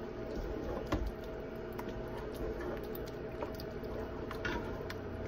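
A spoon stirring thick walnut chili in a pot, with a few light clicks of the spoon against the pot, over a steady background hum.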